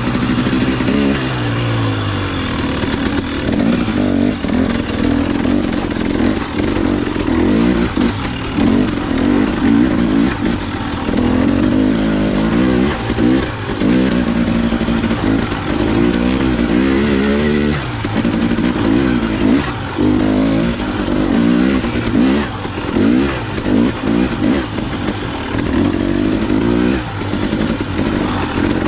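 KTM 300 XC-W two-stroke dirt bike engine ridden at low speed, the revs rising and falling over and over as the throttle is opened and closed, with short dips in between.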